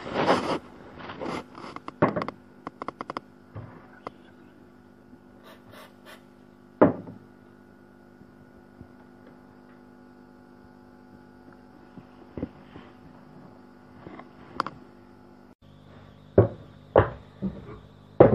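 Small wooden blocks being handled and set down on a wooden workbench: scattered knocks and clicks, with a few sharper ones about 7 seconds in and near the end, over a steady electrical hum.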